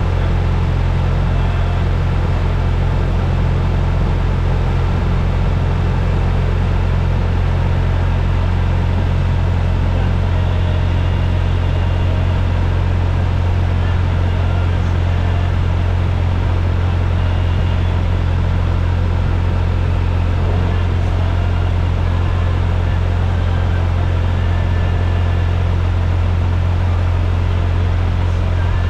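A steady low rumble that does not change.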